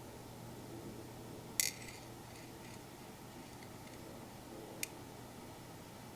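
Two small sharp clicks of watchmaker's hand tools on the watch movement while the dial screws are being taken out. The first, about a second and a half in, is the louder; the second comes near the end. A faint steady hum runs under them.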